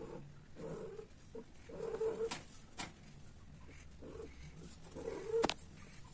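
Mating cats: short, low moaning calls repeated about once a second. A few sharp clicks break in, the loudest about five and a half seconds in.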